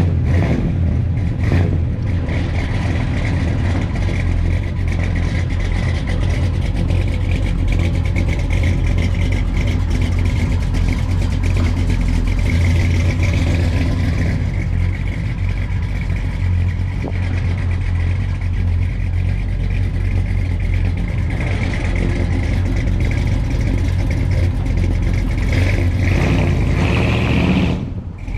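1969 Ford F100's big-block FE V8 (a 390-based engine built to 434 cubic inches) running loud through its exhaust as the truck rolls away slowly, with a steady deep rumble.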